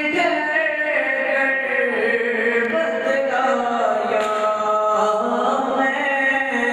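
Male reciter chanting a manqabat, an Urdu devotional poem in praise of Ali, in long held notes that bend and step in pitch.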